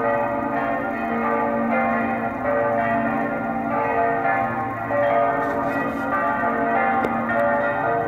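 The church bells of St. Joseph's Church in Basel ringing a full peal: several bells swinging together, their strikes overlapping into one continuous, unbroken ringing.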